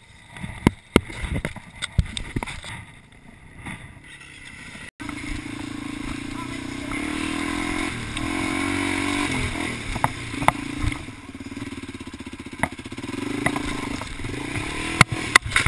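Single-cylinder four-stroke dirt bike engine running under load on a rocky trail. The revs rise about eight seconds in and then hold steady, with occasional sharp clicks of stones. Before that, about five seconds of scattered knocks and clicks over a low background, then the engine comes in abruptly.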